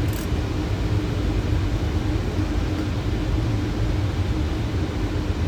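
Steady rumble of airflow and engines on a Boeing 737 flight deck on final approach with gear down and flaps 30, with a faint steady hum running underneath.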